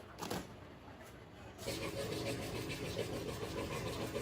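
A motor or engine starts up about one and a half seconds in and then runs steadily.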